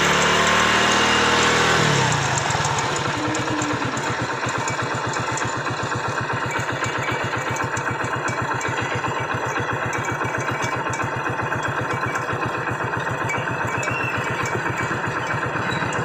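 Hero Splendor Pro's single-cylinder four-stroke engine running: revs fall for about two seconds, then it idles steadily with a fine ticking over the exhaust beat. It is a noise from the magneto (flywheel) side, which the mechanic traces to a broken plate in the flywheel magnet.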